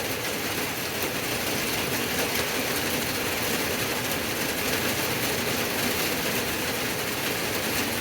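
Steady rain falling, an even hiss with faint drop ticks throughout.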